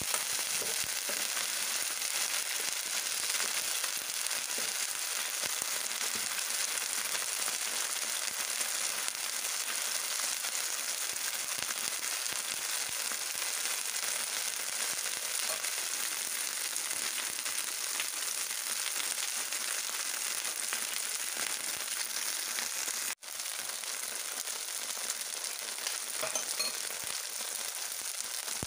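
Battered shrimp, mussels and squid sizzling steadily as they fry in oil in a non-stick pan. The sizzle cuts out for an instant once near the end.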